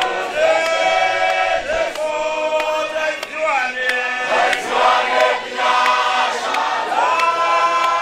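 Group of male voices singing a church hymn together, a lead singer on a microphone among them; long held notes that slide from one pitch to the next.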